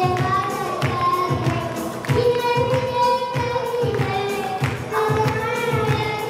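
A boy singing a Turkish folk song into a microphone, amplified through the hall's sound system over a backing track with a steady beat.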